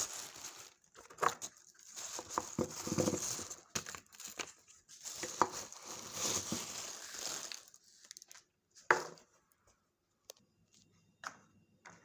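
Crinkly packaging being handled, crumpled and torn in irregular rustling bursts, then a few sharp clicks near the end.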